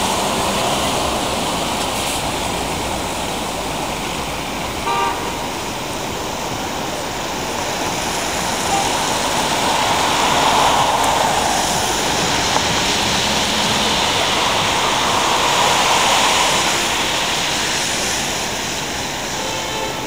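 City street traffic on a wet road: a steady hiss of tyres and engines that swells as vehicles pass. A short vehicle horn toot sounds about five seconds in.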